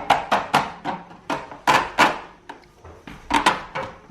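Hard plastic parts of a portable air conditioner's window kit knocking and clacking as they are handled and fitted together: about a dozen sharp, irregular knocks in quick clusters.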